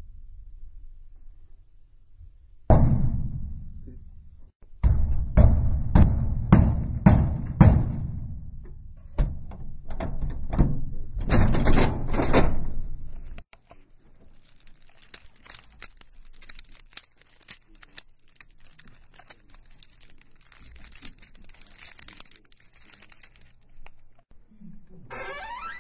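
A heavy thud that dies away slowly, then a run of about ten loud thuds and knocks with low, lingering tails. Then a long, quieter stretch of fast, light clicking, and near the end a sliding tone.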